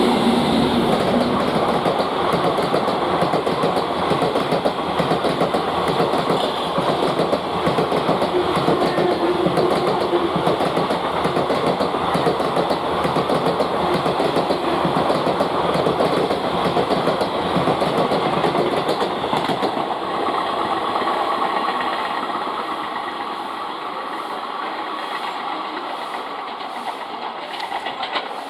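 Passenger train coaches rolling past on the rails, a dense rattling clatter of wheels over the track that fades gradually over the last third as the train draws away.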